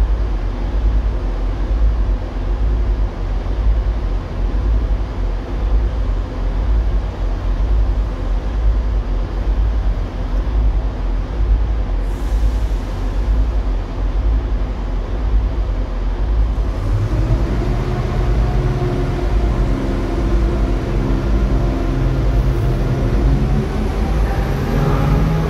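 Class 170 Turbostar diesel multiple unit's underfloor diesel engines idling with a steady low rumble. About two-thirds of the way through they rev up in rising pitch as the train starts to pull away.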